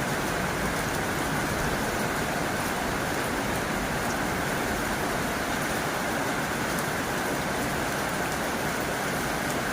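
Heavy rain falling on a tin roof: a steady, dense hiss with faint scattered drop ticks.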